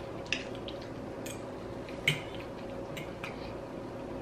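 Quiet eating sounds: chewing steamed fish with a few short, wet clicks and smacks, spread a second or so apart.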